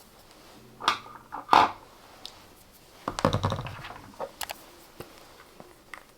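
Makeup products being handled on a table: two sharp knocks as containers are set down, a rustle of handling, then a few small clicks of caps and packaging.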